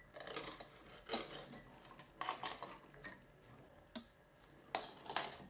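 A small bottle brush scrubbing inside the plastic tube of a De'Longhi ECAM22.110 coffee machine's dispenser, in short irregular scrapes, with a few clicks of the hard plastic parts being handled.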